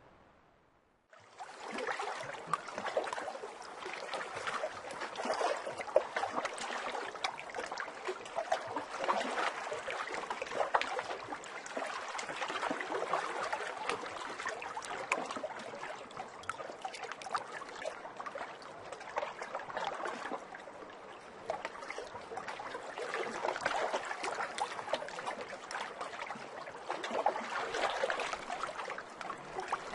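Water trickling steadily, like a small stream, starting about a second in after a moment of silence.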